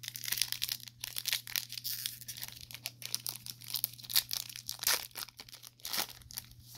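Foil wrapper of a Panini Select trading card pack being torn open and crinkled by hand. It makes a dense run of sharp crackles that stops shortly before the end.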